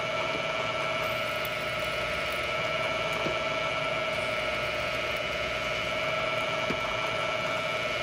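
Bridgeport milling machine spindle running at a steady whine while a twist drill in a drill chuck feeds down into a cast bronze door handle, with two faint ticks.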